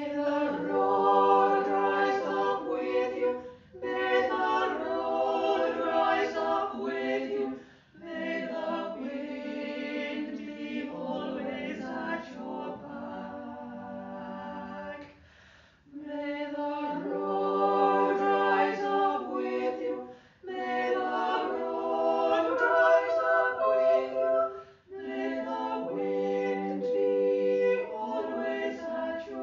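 Recorded choir singing a hymn in a series of phrases, with short breaks between them.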